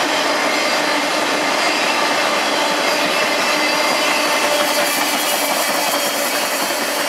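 Freight train cars rolling past close by: steel wheels on the rails making a steady, loud rushing noise, with thin steady ringing tones above it.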